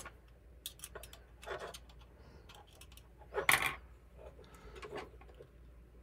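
Small clicks, scrapes and rattles of a plastic rocker switch and its metal push-on terminals being worked out of a metal power-bar case by hand, with a louder burst of handling noise about three and a half seconds in.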